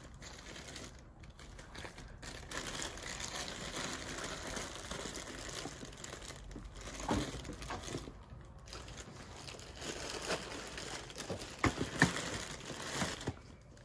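Plastic zip bags crinkling and rustling as hands dig through a plastic tote of bagged loose action figures. There are a few sharper knocks, the loudest near the end.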